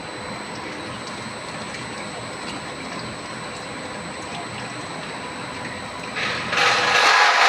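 A pharmaceutical manufacturing vessel running with a steady mechanical rush. About six seconds in, a much louder hiss starts up in two quick steps and carries on.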